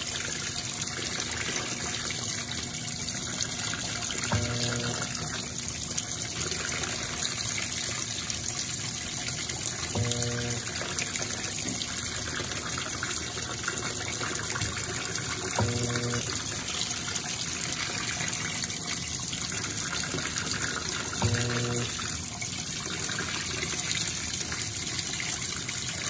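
Electrolux Perfect Wash top-loading washing machine in its rinse, its recirculation jet pouring fabric-softener water steadily down onto the wet laundry. A short low machine hum comes about every five and a half seconds.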